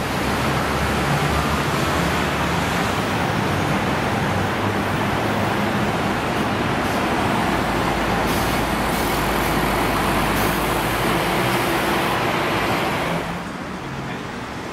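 Road traffic with buses passing close by: bus engines and tyre noise in a steady, loud mix. It falls away sharply near the end.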